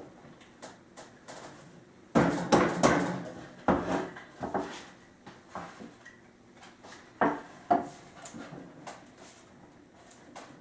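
Wooden table parts knocking and clunking as they are handled and fitted together: a loud cluster of knocks about two seconds in, then scattered single knocks.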